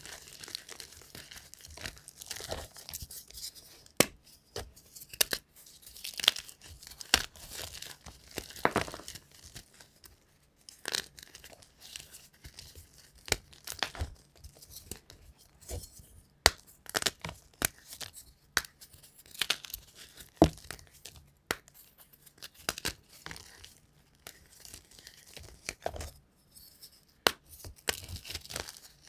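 Dyed gym chalk blocks crushed and crumbled between rubber-gloved fingers: irregular crunching and crackling with sharp snaps as pieces break, over a bed of powdery crumbs.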